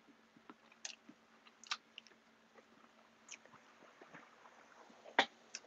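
A person chewing food close to the microphone: scattered soft crunches and mouth clicks, the loudest a little before the end, over a faint steady hum.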